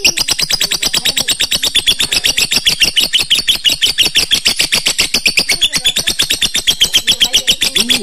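Lovebird giving a long 'ngekek' chatter: a loud, rapid run of sharp high notes at about ten a second, stopping near the end.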